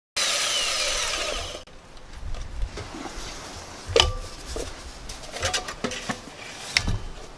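A saw cutting loudly for about a second and a half, then a run of knocks and clanks, the loudest about four seconds in with a short ring.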